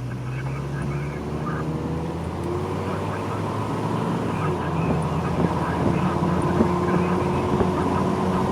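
Vehicle engine running with road noise, heard from inside the cab; the engine's pitch shifts up and down a few times as it is driven.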